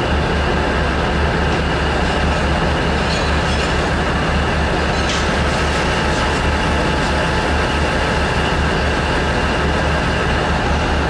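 Steady low rumbling drone of locomotive machinery as the roundhouse turntable carries an electric locomotive round beside a standing diesel shunter. There is a single sharp click about five seconds in.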